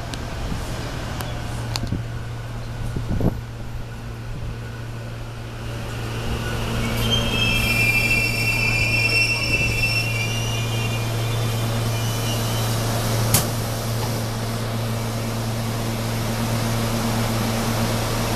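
SEPTA electric commuter train pulling in alongside the platform and braking to a stop, with a high squeal of brakes and wheels from about seven to ten seconds in. A steady low hum runs underneath, and there is a single sharp click about two-thirds of the way through.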